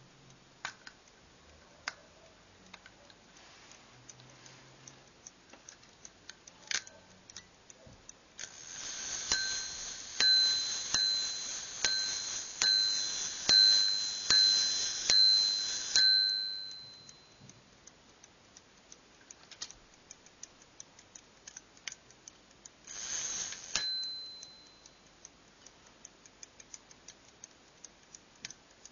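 Homemade striking verge fusee pocket watch: the movement ticks throughout. About eight seconds in, the striking train whirs and the bell in the case rings about eight strokes, a little under a second apart. Later, one more short whir ends in a single stroke of the bell.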